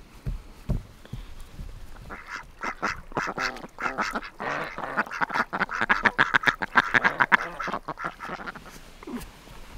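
A flock of white domestic ducks quacking in a rapid, overlapping chatter, starting about two seconds in and stopping shortly before the end. Before that, a few low thumps of dough being pressed on a wooden board.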